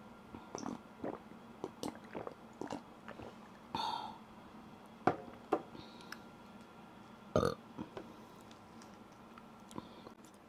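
Sips and swallows of iced tea from a glass mug, heard as a run of short soft clicks, followed by burping: one burp about four seconds in and a louder one past the middle.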